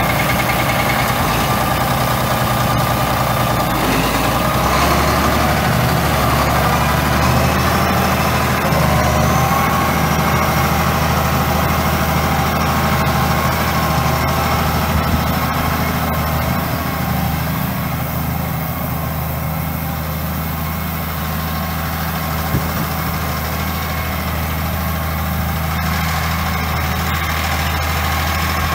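A 1976 Case 2470 tractor's six-cylinder turbo diesel engine running steadily, its low note shifting slightly about five seconds in.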